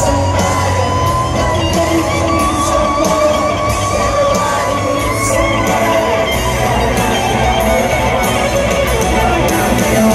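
Live rock band heard from the crowd in an arena, with the echo of the big hall. A Les Paul-style electric guitar plays lead lines over drums and bass, with a man's voice singing.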